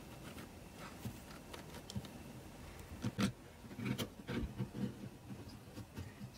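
Small plastic toys being handled and moved about: a scatter of light clicks and taps, busier from about three seconds in.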